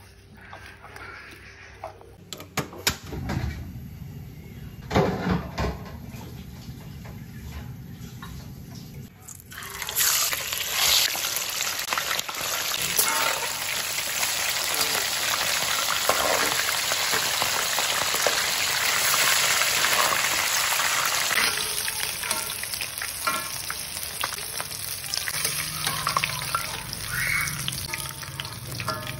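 Kitchen sounds: hands rubbing turmeric-coated fish pieces in a stainless steel bowl and cooking oil being poured into a wok, with scattered knocks. About ten seconds in, a steady hiss from the wok of hot oil begins and carries on.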